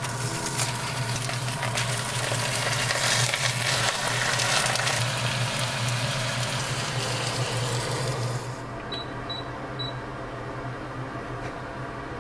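Napa cabbage sizzling in hot oil in a pot, a crackly hiss over a low steady hum. About eight and a half seconds in the sizzle stops and an induction hob beeps three times.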